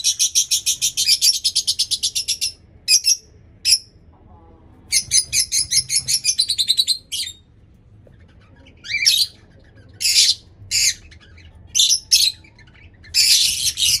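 Caged pet parrots chattering: fast runs of sharp, high chirps repeated several times a second, broken by single short calls and a brief lull in the middle.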